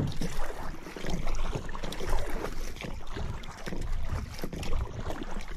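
Racing kayak being paddled on calm water: the paddle blades dipping and splashing with each stroke, the loudness swelling and falling with the strokes.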